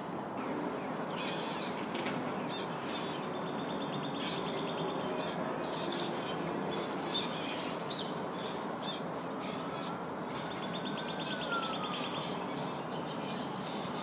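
Birds chirping and calling, with short rattling runs of clicks, over a steady outdoor background noise.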